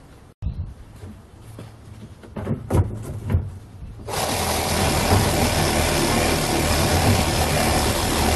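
A few sharp knocks and clunks, then about four seconds in a cheap small cordless reciprocating saw starts and runs steadily, its blade cutting through a dry branch.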